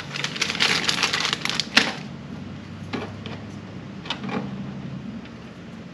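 Clear plastic tackle packaging crinkling and clicking as it is handled, a dense run of crackles for about two seconds that ends in one sharp snap, then a few light clicks as small terminal tackle is picked up.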